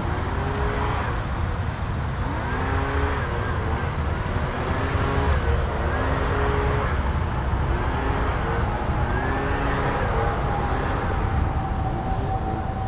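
Steady low rumble of road traffic, with a string of short rising-and-falling tones about once a second over it and a high steady hiss that stops near the end.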